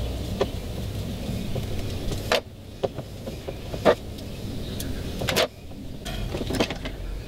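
Scattered short clicks and knocks from hand tools and a heavy battery cable being handled, about five in all, over a steady low background rumble.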